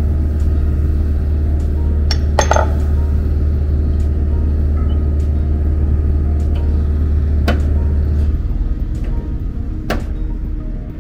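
Body-shop stud welder humming loudly as its electrode is held against the car's steel body panel, with a few sharp metallic clicks. The hum cuts off about eight seconds in.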